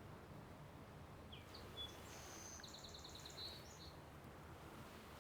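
A distant songbird singing once: a few short high notes, then a fast buzzy trill and a final note, over a faint low outdoor background.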